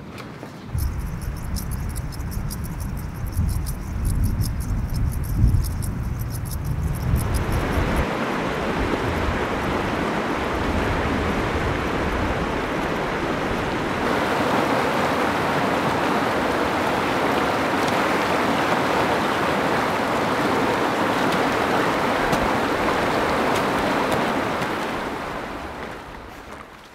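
Fast mountain river rushing over rocks: a steady roar of water that grows louder about halfway through and fades out near the end. For the first several seconds, before the water comes in, there is a low, gusty rumble.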